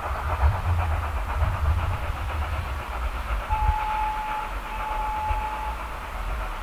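LSWR S15 4-6-0 steam locomotive No. 506 running under steam, its exhaust beating rhythmically over a low rumble. A little past the middle it sounds its whistle twice, two steady blasts of the same note, each about a second long.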